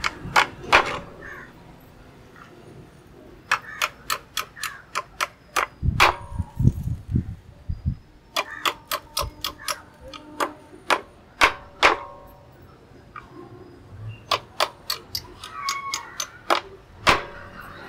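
Irregular sharp metallic taps and clicks from a metal rat trap being worked by hand, some with a brief ring, and a few dull low knocks about six to seven seconds in.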